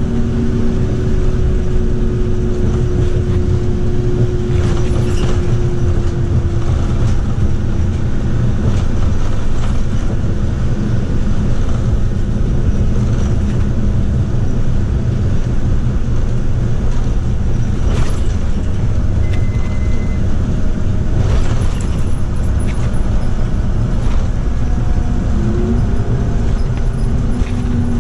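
Interior running noise of a Scania K310UB bus under way: the 8.9-litre five-cylinder Scania DC9 diesel and ZF Ecomat six-speed automatic, with a steady low rumble of engine and road. A whine fades out over the first few seconds and another rises near the end as the bus pulls harder, with a few light rattles in between.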